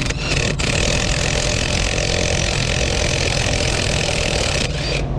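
Air impact wrench running steadily for several seconds, spinning off the axle shaft flange nuts, with a loud hissing whir that cuts off suddenly near the end. A diesel truck engine idles underneath.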